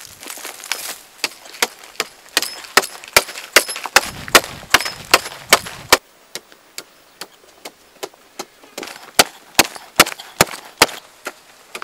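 Hand digging tool striking and breaking into hard, dry earth, a steady run of sharp strikes about two to three a second. The background changes suddenly about six seconds in and the strikes carry on at the same pace.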